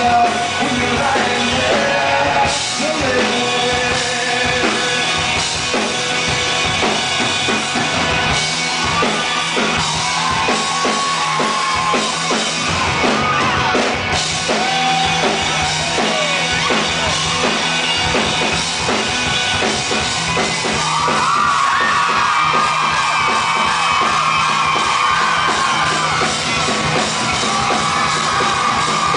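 Live rock band playing loudly, with singing over a steady drum beat; a higher, held melodic line comes in about two-thirds of the way through.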